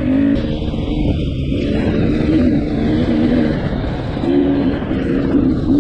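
2019 KTM 300 XC-W TPI two-stroke dirt bike engine running under way on a trail, its pitch rising and falling as the throttle is worked, over a steady low rumble.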